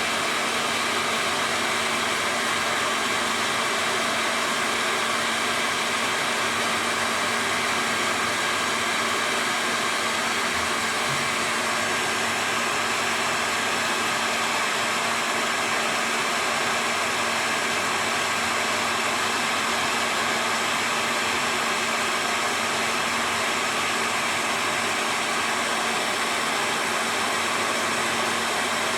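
Hair dryer running steadily at constant speed, blowing hot air to shrink a plastic bottle tightly over a juicer part.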